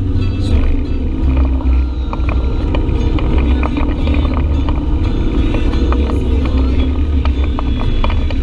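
Side-by-side UTV engine running steadily on an offroad trail, a constant low rumble, with frequent short clicks and knocks of the machine rattling over rough ground.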